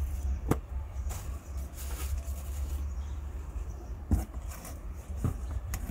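Rustling and a few sharp clicks of plant packaging being handled and unwrapped, over a steady low rumble.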